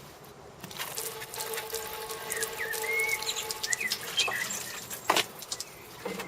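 Water sprinkled from a watering can pattering onto a waterproof plastic phone case, starting about a second in and stopping near the end.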